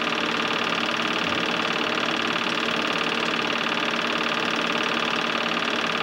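Home-movie film projector running with a steady mechanical whirr.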